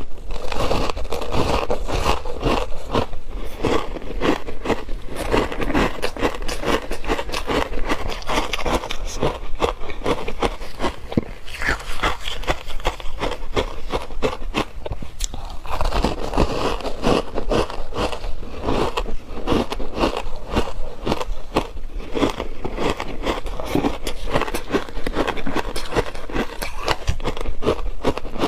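Close-up crunching of ice chunks coated in matcha milk powder being bitten and chewed, a dense run of sharp cracks and crackles, a little thinner about halfway through.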